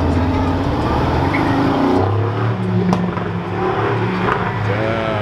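Mercedes-AMG GT roadster's twin-turbo V8 running as the car drives past and away, a steady low engine drone whose note changes about two seconds in.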